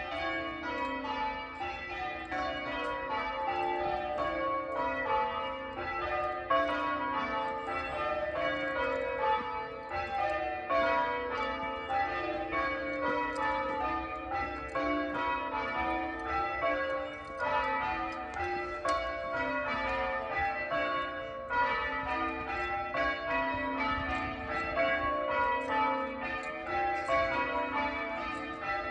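Church bells rung in change ringing: a steady, continuous run of overlapping strikes, the bells sounding one after another down the scale in each row.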